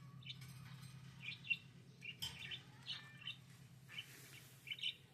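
Small birds chirping in a rapid series of short, sharp calls, some with quick falling notes, over a faint steady low hum.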